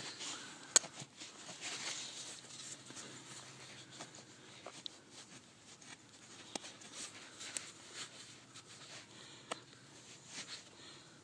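Gloved fingers scraping and crumbling loose soil in a small dig hole, with a faint scratchy rustle and scattered small clicks of dirt and grit falling; one sharper click just under a second in.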